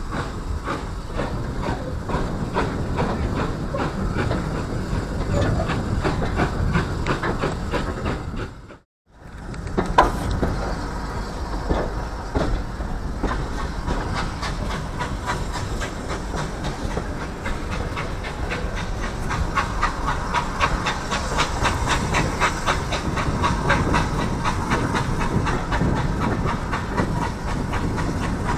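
Heritage steam train on the move: the locomotive's steam exhaust beats and hiss with the carriage wheels clattering over the rail joints, heard from an open carriage window, the engine working on the uphill run north. The sound cuts out completely for a moment about nine seconds in, then resumes with a sharp click.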